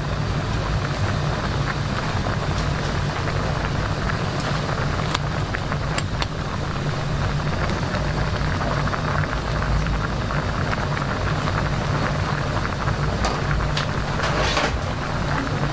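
A pot of seafood ramen with clams and shrimp boiling hard on a gas burner: steady bubbling and spitting over a low, steady hum, with a few faint ticks.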